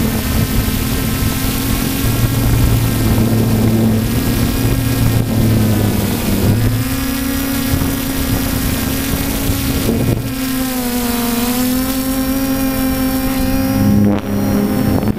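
3D Robotics Iris quadcopter's electric motors and propellers whining steadily, picked up close by its onboard camera. The pitch of the whine shifts a few times as the motors change speed while the drone manoeuvres.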